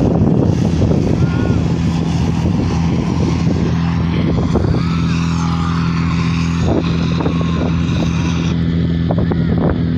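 Fire-fighting pump engine running steadily at high speed while it drives water through the hose lines to the spraying jets.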